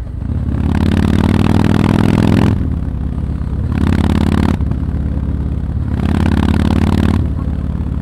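Yamaha MT-01's big air-cooled V-twin running, its exhaust note rising in three loud surges of throttle with quieter running between them.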